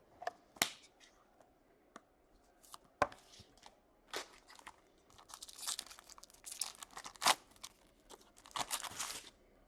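Foil trading-card pack wrapper being torn open and crinkled, in stretches of crackly rips through the second half, after a few sharp taps.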